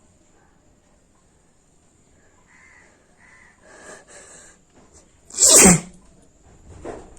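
A woman sneezing: one loud, sudden sneeze about five and a half seconds in, after a few quieter catching breaths, and a smaller burst near the end.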